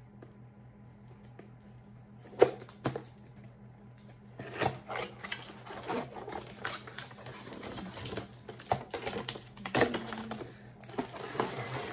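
Product packaging being opened by hand: two sharp clicks, then a dense run of crinkling, rustling and small clicks from cardboard and plastic being handled. A low steady electrical hum sits underneath.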